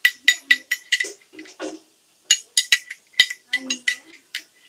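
A metal spoon clinking against a glass dish while mixing a green paste: a quick run of sharp, ringing clinks, a few a second, with a short pause in the middle.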